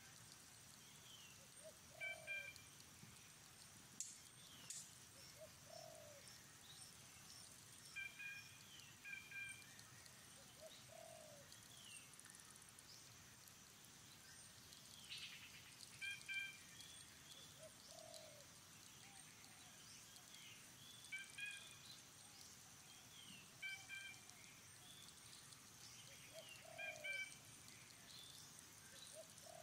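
Faint bird calls: a short low note repeating every few seconds, with quick high chirps in pairs in between.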